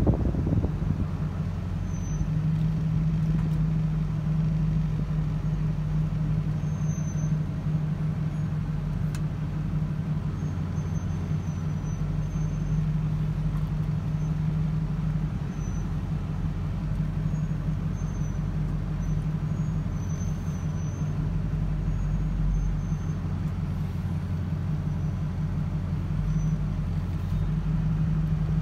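Engine of a loaded stone-hauling truck running steadily at low speed, heard from inside the cab as a steady low drone while the truck creeps along.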